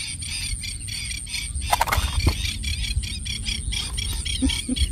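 Many small birds chirping rapidly in a steady chorus, over a low wind rumble, with a brief knock and squeak about two seconds in.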